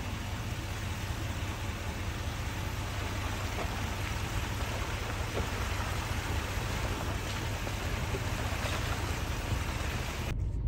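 Steady rain falling, an even hiss over a low steady rumble; it cuts off suddenly near the end.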